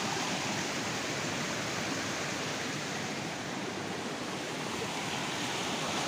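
Steady rush of a small, fast-flowing rocky stream in spate, water pouring over stones.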